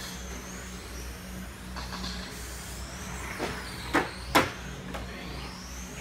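Electric motors of 1/10-scale 4WD touring RC cars whining as they race on carpet, their pitch rising and falling as they speed up and brake for corners. Two sharp knocks about four seconds in, as a pair of cars passes close by, stand out as the loudest sounds, over a steady low hum.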